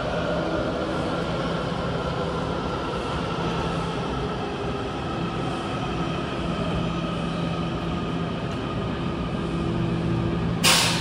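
Washington Metro 6000-series subway train standing at an underground platform with its doors open, its onboard equipment running with a steady hum and several held tones. A short loud burst of noise comes near the end.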